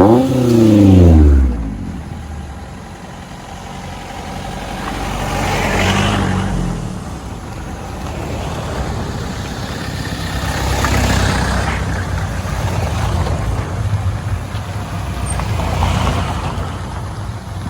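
Off-road 4x4 engines: one revs hard at the start, its pitch rising and then falling, then engine and tyre noise swells and fades about three times as vehicles drive past one by one.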